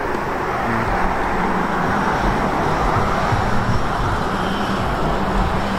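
Road traffic: a car driving past on the street, its tyre and engine noise swelling through the middle and easing off again.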